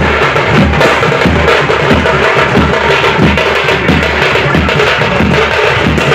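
Loud percussion music: drums beaten in a steady, driving rhythm with a sharp clacking beat on top.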